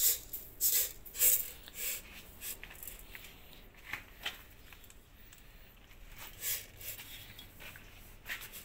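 Footsteps scuffing on a gritty concrete path, several at a walking pace in the first two seconds, then only scattered faint scrapes and rustles.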